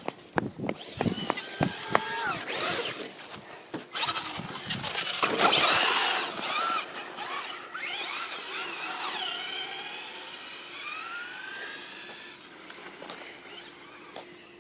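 Traxxas Slash RC truck's electric motor whining as it drives, its pitch rising and falling with the throttle. It starts with a few sharp clicks, is loudest about five to six seconds in, then fades as the truck moves away.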